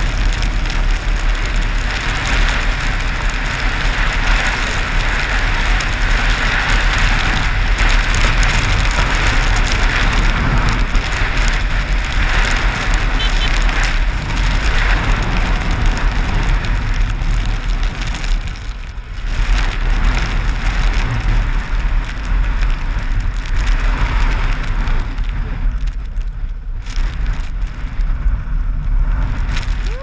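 A dirt bike riding on a snow-covered road, its engine running under loud, steady wind rush buffeting the helmet camera's microphone. The rush eases briefly about two-thirds of the way in and again near the end.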